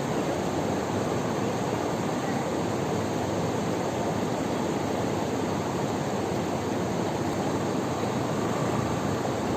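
Fast-flowing river water rushing, a steady, even noise with no break.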